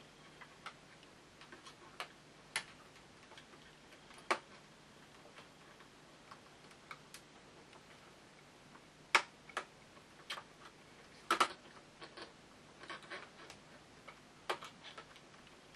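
Irregular light clicks and snaps of plastic toy packaging being handled and pried at, with a few louder clicks about nine and eleven seconds in.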